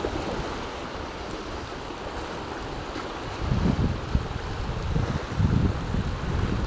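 Sea surf washing against shore rocks, a steady hiss of moving water, with wind buffeting the microphone in gusts from about halfway through.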